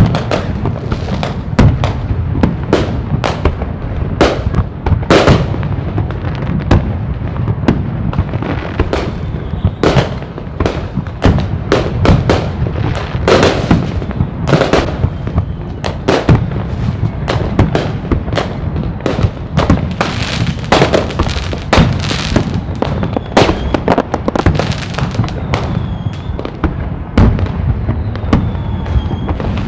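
Fireworks display: a dense, unbroken barrage of sharp bangs and crackling explosions, several a second.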